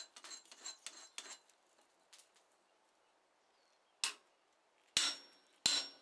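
Hand hammer striking a hot cut chisel set on red-hot flat bar stock over the anvil: some light ticks as the chisel is placed, then three sharp metallic blows about a second apart near the end, each with a brief high ring. The blows drive a chisel cut across the back of the bar to mark off the hinge face.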